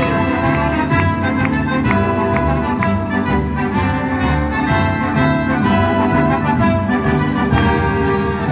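Live symphony orchestra playing, with a steady beat of percussion strokes.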